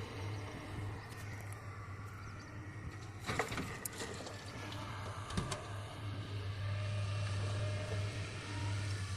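Heavy earthmoving machinery running with a steady low diesel hum, broken by a few sharp knocks and clatters about three and a half seconds in and again about five and a half seconds in.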